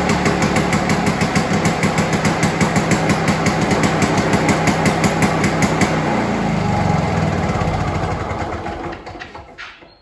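Victa Commando two-stroke lawnmower engine running steadily on a freshly cleaned carburettor. About six seconds in its firing slows, and it winds down to a stop near the end.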